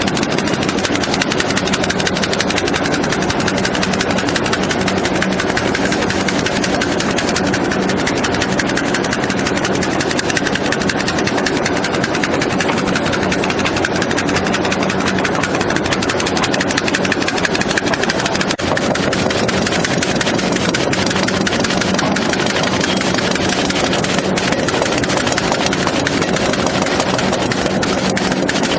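Loud, steady industrial machine noise: a constant hum under a very fast, even rattle that holds steady throughout.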